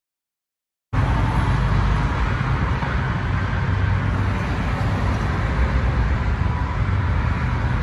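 Silent for about the first second, then steady freeway traffic noise with a deep rumble that comes in suddenly and holds.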